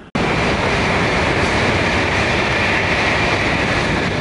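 Tokaido Shinkansen bullet train approaching through the tunnel, a loud, steady rushing roar with a hissing band in it. It starts abruptly.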